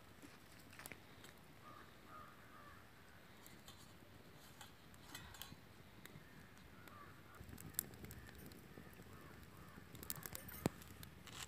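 Quiet outdoor ambience with faint, distant bird calls now and then and a few scattered light clicks. A cluster of sharper clicks and taps comes near the end, as cooking oil is poured from a plastic bottle into the iron pan.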